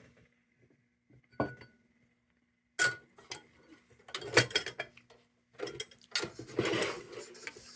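Clinks and rattles of a tin lantern's metal parts and its glass globe being handled: a sharp clink with a short ring about a second and a half in, another clink, then a few seconds of irregular clattering and rubbing.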